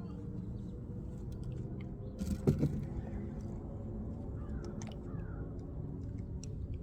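Steady low motor hum, with scattered light clicks and one louder knock about two and a half seconds in.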